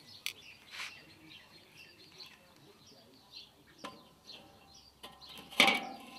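Light clinks of metal tongs moving charcoal briquettes, then near the end a loud metallic clank as the Weber kettle grill's steel cooking grate is set down on the kettle. Birds chirp throughout.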